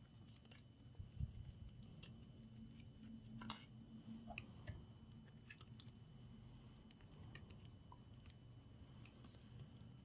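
Near silence with a few faint, scattered clicks and taps of tweezers and fingers handling small parts inside an open laptop, over a low steady hum.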